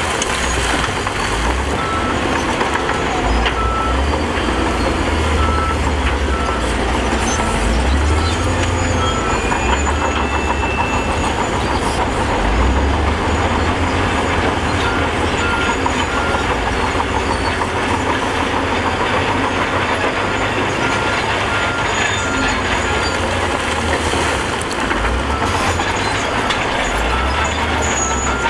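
Heavy diesel engine of an SDLG wheel loader running steadily with a deep rumble. A reversing alarm beeps repeatedly for several seconds early on and again through the latter half.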